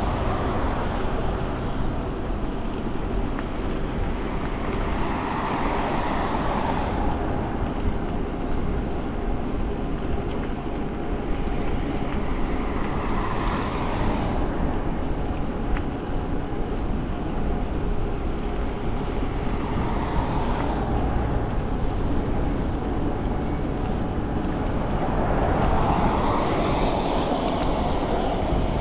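Wind rushing over the microphone and tyre noise from an e-bike riding along, with a faint steady whine of the Bafang BBS02 mid-drive motor under it. The rush swells and eases several times.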